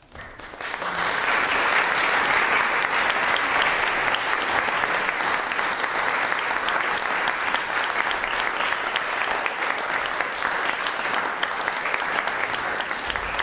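Audience applauding in a concert hall, breaking out all at once and swelling to full strength within about a second and a half, then keeping up a steady clapping.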